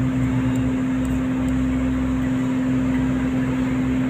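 Cat 320D excavator's diesel engine and hydraulics running steadily, heard from inside the cab, with a constant droning tone over a low hum. The flow-limitation solenoid fault has been cleared and the engine holds its running speed without stalling.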